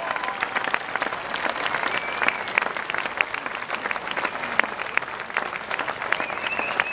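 Large audience applauding, a dense, steady patter of many hands clapping.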